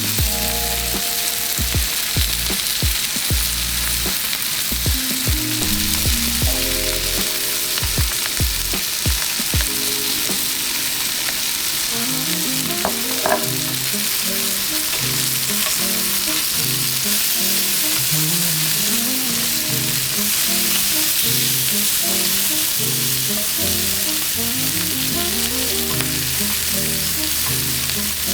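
Food sizzling steadily in hot oil in a frying pan, under background music.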